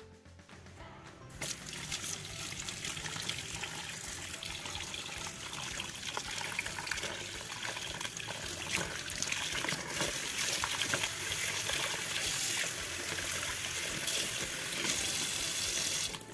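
Kitchen tap running into a steel bowl of mussels in a sink, the stream splashing over the shells as they are rinsed. The water comes on about a second and a half in and cuts off just before the end.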